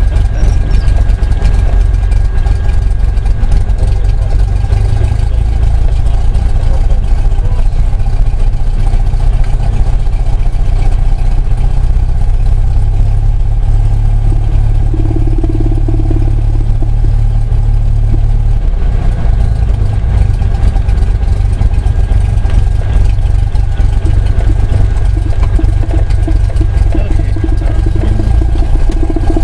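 Cessna Skyhawk's piston engine at idle, a steady low drone heard from inside the cockpit as the plane rolls along the runway after landing.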